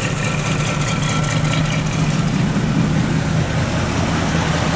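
Carbureted 305 cubic-inch V8 (LG4) of a 1987 Pontiac Grand Prix idling just after starting, running a little unevenly. The owner puts the rough early running down to a defective vacuum choke unloader.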